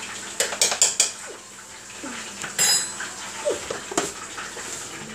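Plastic measuring cups and a plastic flour canister clattering and knocking: a quick run of sharp clicks about half a second in, a short scrape a little past the middle, then a single knock as a cup goes into the canister for a scoop of flour.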